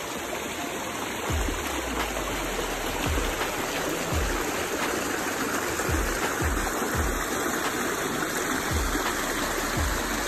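Creek water rushing and splashing over rocks at a small cascade, a steady rushing noise that gets a little louder about a second in.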